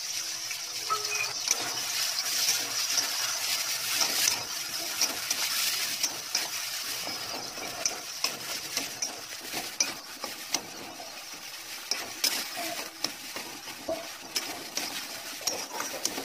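Tomatoes with ginger and green chili pastes sizzling in hot oil in a metal kadai while a metal spatula stirs them, scraping and clinking against the pan. The sizzle is strongest in the first half and dies down later, while the clinks of the spatula go on throughout.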